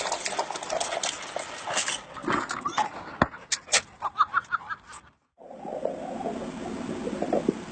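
A dog's noises amid scuffling and knocking, with a quick run of about five short, high-pitched sounds about four seconds in. The audio cuts off abruptly just after five seconds and switches to a different, steadier noisy scene.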